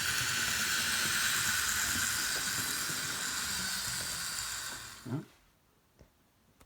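Hornby James model locomotive's small electric motor running along the track with a steady whirring hiss and rattle, a bit noisy, then dying away about five seconds in. A brief vocal sound follows.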